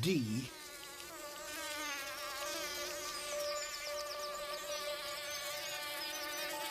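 Bumblebee buzz-pollinating a nightshade flower: a steady high-pitched buzz held on one note, the musical note D, starting about a second in. The vibration shakes the pollen loose from the flower.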